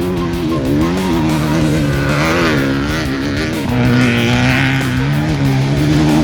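Off-road race vehicle's engine running hard, its pitch rising and falling as the revs change, with music playing alongside.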